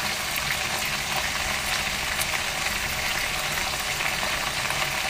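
Beef slices frying in a little olive oil in a pan: a steady sizzle with scattered fine crackles, over a low steady hum.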